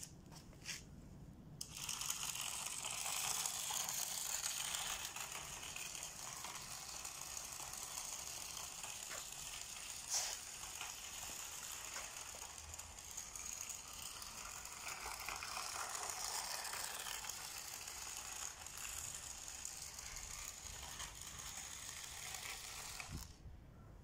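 Matchbox infrared remote-control toy car driving across rough concrete: its small electric motor and plastic gears whir steadily. The whir starts about two seconds in, has a single click about ten seconds in, and stops shortly before the end.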